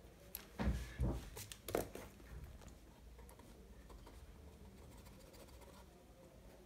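A few sharp knocks and clicks in the first two seconds as a pen is set down on the desk and a Tombow MONO zero stick eraser is picked up, followed by faint scratching of its tip on sketchbook paper.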